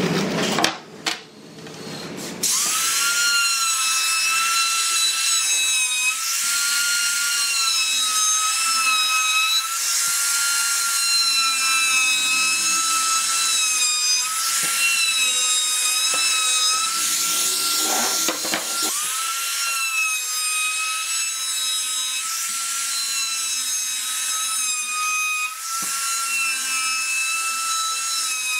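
Handheld trim router running at high speed with a steady high whine as it cuts along the edges of wooden boards. It starts about two seconds in after a few knocks, and its pitch dips briefly and recovers about two-thirds of the way through.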